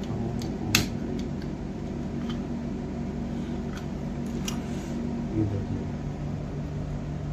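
Hard plastic clicks and clacks as a clear waterproof action-camera housing is unlatched and the camera body is lifted out. The sharpest click comes under a second in, with a few lighter ones over the next four seconds, all over a steady low hum.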